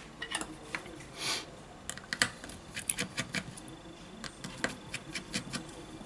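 Small irregular clicks and taps of a precision screwdriver and small metal parts against a smartphone's metal frame as it is handled on the work mat, with a short scrape about a second in.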